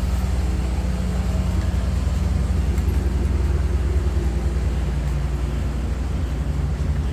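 Steady, unchanging low engine drone with a hum of several low tones.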